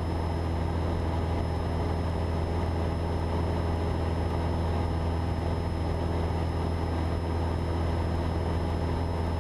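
Cessna 172's piston engine and propeller droning steadily in level flight, heard from inside the cabin, with a few faint high-pitched steady tones over the low hum.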